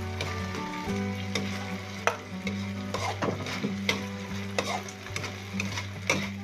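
Spatula stir-frying in a wok: repeated scrapes and knocks against the pan every half second or so over a steady frying sizzle, as sliced long beans are tossed in with the other ingredients.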